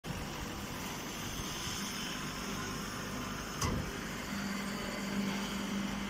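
Steady machine noise from a hydraulic baler and its feed conveyor running, with a single knock about three and a half seconds in and a low steady hum that sets in about four seconds in.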